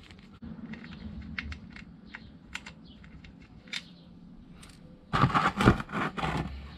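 Screwdriver backing the level screw out of a Harley Ironhead Sportster's chrome primary cover: a string of small, sharp metal ticks and clicks, then a louder clatter of handling about five seconds in.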